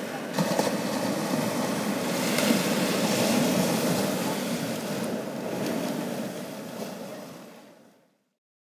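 Ocean surf breaking and washing onto a sandy beach, mixed with wind noise on the microphone. The sound fades out near the end.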